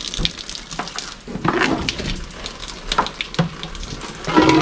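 Water running and splashing out of a newly fitted carbon water filter as it is flushed, to clear the carbon fines that turn the first water red.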